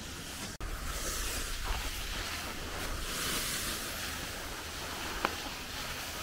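Skis sliding over packed snow while skiing downhill, a steady hiss, with wind noise on the microphone underneath. The sound drops out for an instant about half a second in, and there is a short click near the end.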